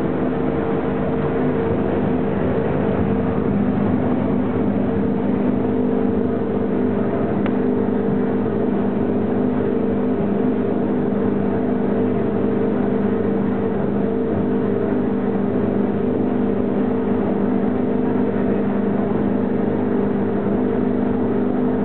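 Jet boat underway on a river, heard from inside its covered cabin: the engine drones steadily with a constant hum, over a steady hiss of water and wind.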